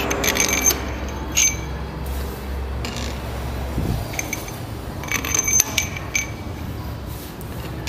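Steel cylinder head bolts clinking and ringing as they are handled and dropped into their holes in the head of a Toyota 5L engine: several sharp metallic clinks scattered through, some in quick clusters.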